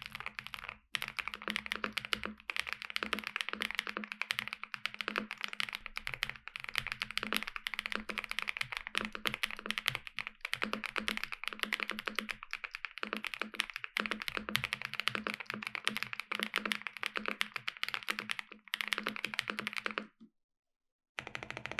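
Fast, continuous typing on a NuPhy Gem80 mechanical keyboard built with BSUN Aniya switches, an FR4 plate, plate-mounted stabilizers, PBT keycaps, a silicone socket mount and all foams in, giving dense clacks of keystrokes. The typing stops briefly just under a second in and for about a second near the end.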